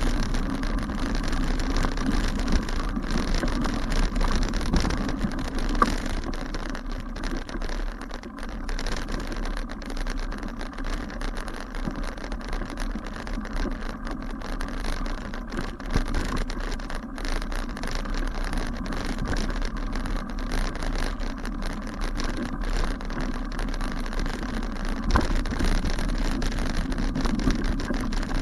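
Bicycle riding over a rough dirt and grass path, heard through a camera mounted on the bike: steady tyre noise with a constant patter of small rattles and knocks from the bike shaking over the bumpy ground.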